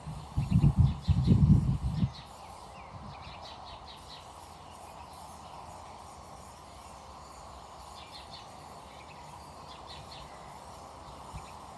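Birds chirping faintly over a steady outdoor background hiss, with a few heavy low rumbles on the microphone in the first two seconds.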